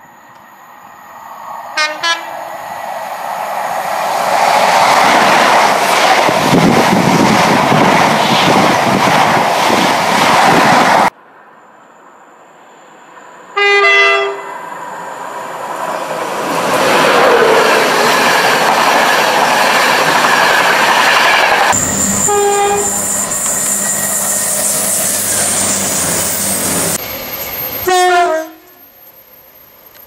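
British passenger trains in turn sounding two-tone horns and passing. About two seconds in, an approaching train gives a short horn and then runs past with growing wheel and rail noise. Midway, a Class 91 electric locomotive with its coaches sounds its horn and passes at speed. Near the end come more short horn blasts, the last one stepping between two notes.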